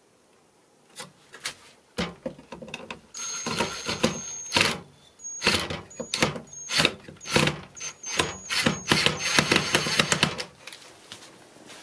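Wooden cupboard being handled and fitted into place: a run of irregular knocks and clatter with short high squeaks, stopping near the end.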